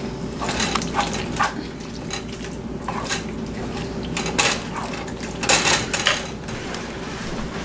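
A cooking utensil stirring thick chili in a pot, scraping and knocking against the pot at irregular moments over the steady sound of the cooking.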